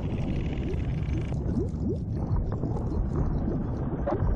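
Documentary sound-design ambience for the inside of the bloodstream: a steady low rumble with gurgling and brief rising squeaks, and a faint high hiss-like layer that drops away about a second in.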